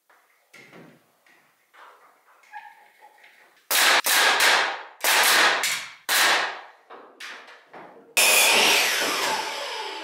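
Nailing into wooden wall framing: quiet knocks of boards being set in place, then five loud, sharp strikes in about two and a half seconds, each ringing briefly. About eight seconds in comes a louder noise of about two seconds that fades and then cuts off suddenly.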